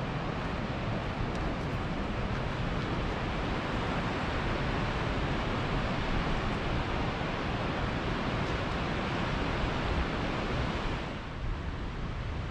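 Steady rushing noise of ocean surf against the shore mixed with wind on the microphone, dropping a little about eleven seconds in.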